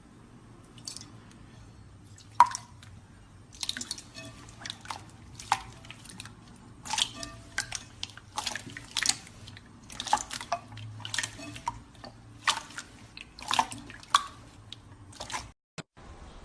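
Slime being squeezed and poked by hand, making a quick, irregular run of small clicks and pops that stops shortly before the end.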